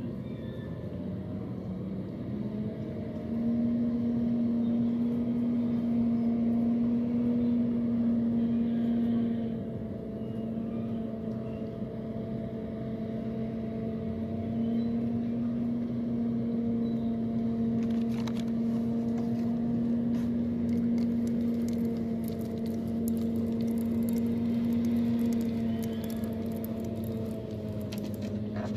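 An engine running at a steady speed, a continuous droning hum that grows louder about three seconds in and drops slightly in pitch near the end. Faint light clicks come through in the second half.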